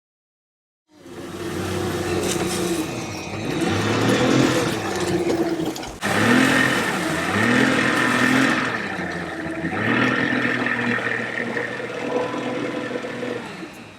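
A motor engine running, its pitch rising and falling over and over as it is throttled up and down, broken by abrupt cuts about six seconds in and near the end.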